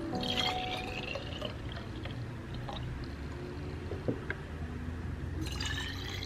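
Green vegetable juice poured from a juicer jug into small glass milk bottles. The pitch of the filling rises as a bottle fills near the start, and again as pouring into the next bottle begins near the end.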